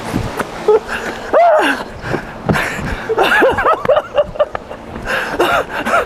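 People's voices exclaiming and laughing in short calls that swoop up and down in pitch, several times, over a steady rushing noise.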